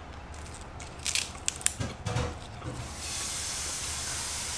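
Crisp crunching as raw green vegetables are bitten and chewed, with a few sharp crunches about a second in. A steady hiss follows for the last couple of seconds.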